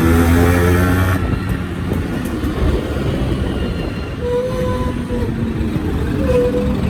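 Yamaha RX-series two-stroke motorcycle engine revving, dropping back about a second in to a rougher, lower running. Short, higher steady tones sound twice, around four and six seconds in.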